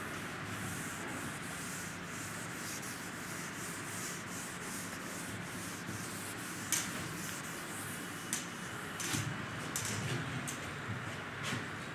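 Chalkboard being wiped clean with a board eraser (duster): a run of quick back-and-forth rubbing strokes, with a few sharper knocks in the second half.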